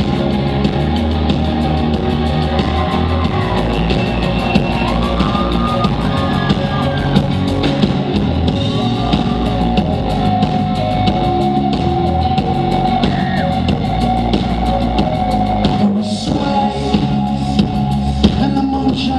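Rock band playing live: electric guitar, bass and drum kit, steady and loud.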